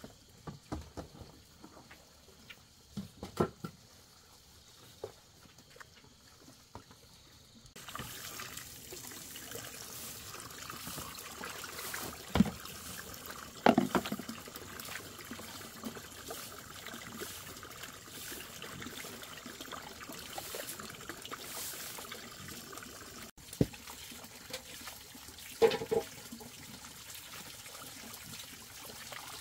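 Hands swishing and rinsing green leaves in a plastic basin of water, over a steady trickle of water running into a basin, with a few louder splashes. For the first several seconds there are only scattered light knocks before the water sound starts.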